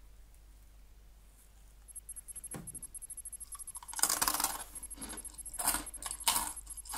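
Crisp crinkle-cut sweet potato snack sticks being bitten and chewed: a loud run of crunches about four seconds in, then two more crunches near the end. A faint, fast, high ticking runs underneath from about two seconds in.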